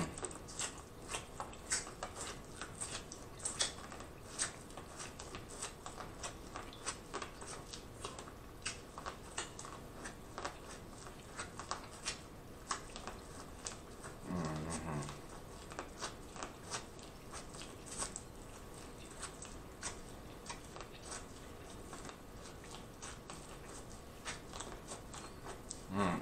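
Close-miked eating of corn on the cob: kernels crunching and popping off the cob as many small, irregular wet clicks. About halfway through there is a brief low hum from the eater.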